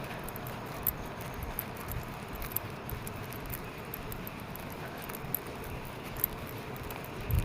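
Steady outdoor background noise with many small, irregular clicks and crackles and a few soft thumps.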